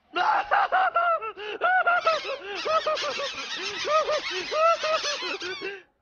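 A cartoon bird's honking laugh: a fast run of goose-like honks, several a second, each rising and falling in pitch. It starts abruptly and breaks off just before the end.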